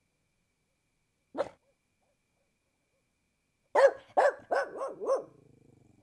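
Pit bull barking: one short bark, then a quick run of about five barks near the end, the last fading into a faint low rumble.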